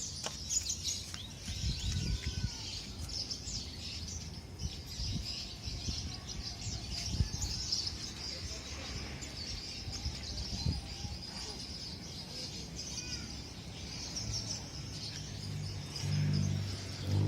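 Many small birds chirping steadily, with a few short whistled calls among them and scattered low knocks. A low hum rises near the end.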